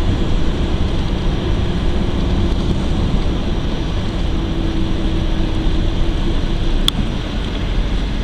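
Car interior noise while driving: a steady rumble of engine and tyres on the road with a hiss of wind, and one sharp click about seven seconds in.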